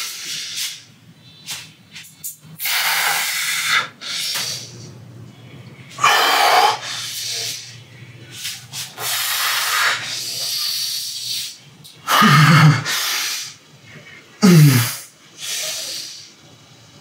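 A man breathing out hard, in hissing breaths through his teeth, about every two to three seconds as he lifts dumbbells, with two short strained grunts near the end.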